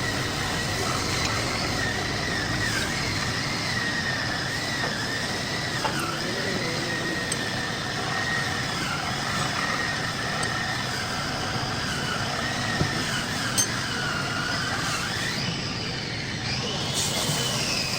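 Metal lathe cutting a pulley: the machine runs steadily while the tool on the metal gives a high squeal that wavers up and down in pitch.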